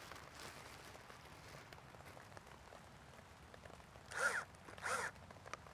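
Cordless drill driving a bulb auger into garden soil, with two short bursts of motor whine about four and five seconds in, each bending in pitch.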